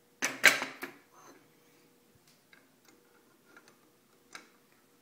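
A quick clatter of sharp metal knocks as a hot cast silver bar is knocked out of a graphite ingot mould with locking pliers, followed by a few faint scattered ticks.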